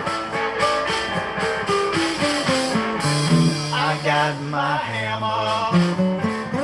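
Live blues-rock band playing an instrumental passage: quick picked guitar notes, then held, wavering lead notes over a steady bass line.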